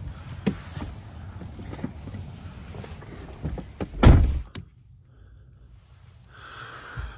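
A van door shut with one heavy thud about four seconds in, after which the outside traffic hum drops away to a quiet interior. A few light knocks of climbing in come before it.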